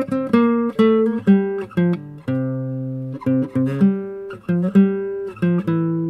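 Instrumental background music: an acoustic guitar picking a melody, each note plucked and left to ring, roughly two notes a second.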